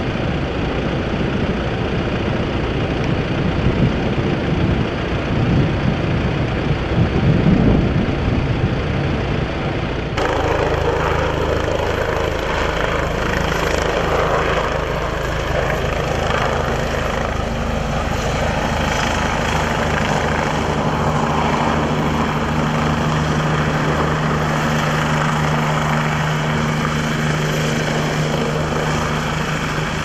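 Helicopter hovering close by: a steady rotor beat with a low engine drone, starting abruptly about ten seconds in. Before that there is a rougher, uneven rumble.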